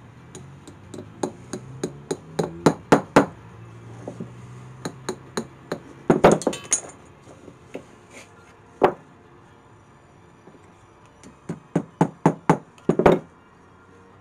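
Hammer tapping small nails into a wooden pallet block. The blows come in quick runs that grow louder as each nail goes in, with a loud cluster about six seconds in and a run of about six blows near the end.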